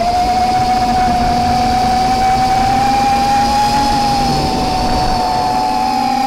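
Eachine X220 racing quadcopter's brushless motors and propellers whining at a steady pitch that rises slightly and then eases off, with wind rumbling on the onboard camera's microphone.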